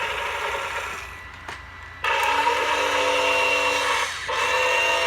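Toy Caterpillar backhoe's small electric motor and gearbox whirring steadily. It fades away in the first second or two, with a single click, then starts up again abruptly about two seconds in and stops briefly just after four seconds before running on.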